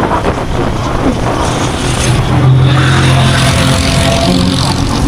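Road traffic: motor vehicle engines running, one engine humming loudly and steadily for a second or two in the middle.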